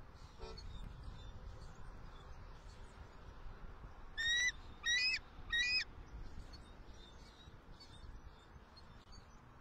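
Bald eagle calling: three short, high piping calls in quick succession about four seconds in, over a low background rumble.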